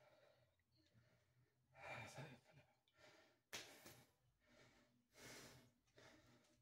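A man breathing hard with three faint exhales, the middle one sharp and sudden, like the breaths of someone working through dumbbell curls.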